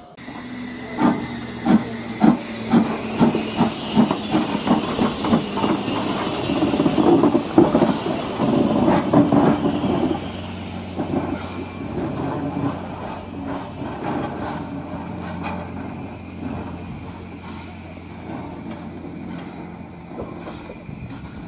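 Steam locomotive starting away: hissing steam with exhaust beats that quicken as it gathers speed until they run together, then settle quieter.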